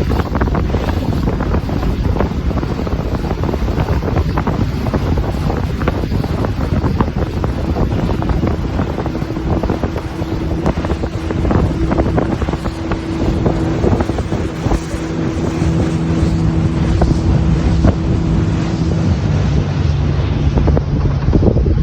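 Strong wind buffeting the microphone over a motorboat's running engine. A steady engine hum comes through the wind more clearly through the middle of the stretch and later drops to a lower pitch.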